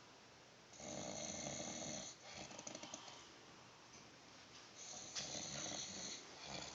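A man snoring in his sleep: two long, loud snores about four seconds apart, each lasting over a second, with a softer snore just after the first.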